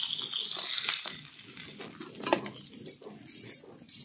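Metal spatula scraping and clinking against a metal kadhai as fried fish are lifted out of the hot oil, a few sharp knocks over the next seconds. Oil sizzling in the pan fades out about a second in.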